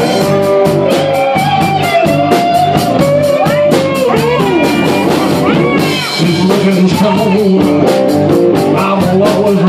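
Live blues band playing loudly, with drums and electric guitar under a harmonica lead whose notes slide up and down.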